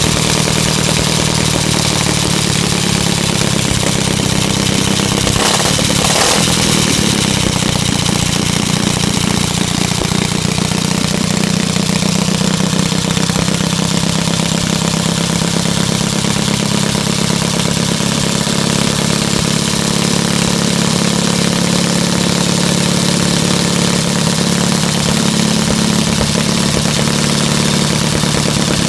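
1921 Douglas 2¾ hp motorcycle's flat-twin engine idling steadily on its stand, with a brief surge about six seconds in.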